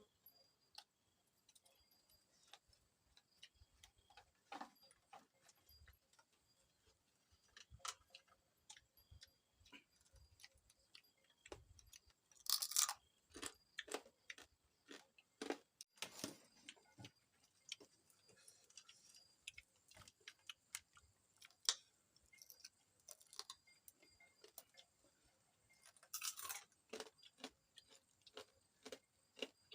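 Faint, irregular crunching and clicking of someone chewing crisp fried insects, with a few louder crackling bites.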